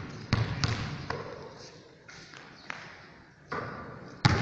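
Basketball being dribbled on a hard court floor: a few bounces in the first second, then quieter, with a single sharp hit near the end.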